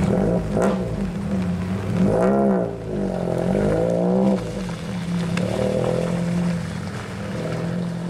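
Peugeot 206 RC rally car's four-cylinder engine revving up and down several times as it drives slowly through a muddy turn, then quieter as it pulls away.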